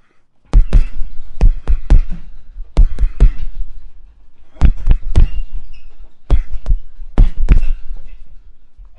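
Punches landing on a heavy punching bag: sharp, deep thuds in quick combinations of two to four hits, with short pauses between the combinations.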